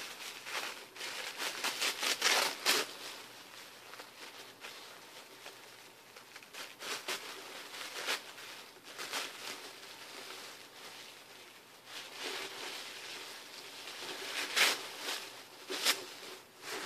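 Paper packaging crinkling and rustling in irregular bursts as items are unwrapped by hand, with a few louder crackles about two seconds in and again near the end.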